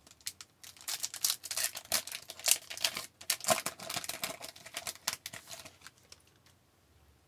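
A 2018-19 SP Authentic hockey card pack being torn open, its foil wrapper crinkling and tearing in a quick run of crackles as the cards are slid out. The crackling stops about six seconds in.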